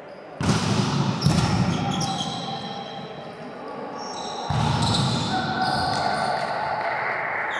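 Volleyballs being struck and hitting the court floor, three sharp smacks that ring on in a large echoing sports hall: about half a second in, just after a second, and again at about four and a half seconds. Short high-pitched squeaks sound over the echo.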